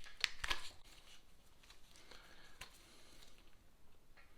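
A few faint sharp clicks and light handling noise from small plastic wiring connectors being worked apart by hand, two clicks close together near the start and another about two and a half seconds in.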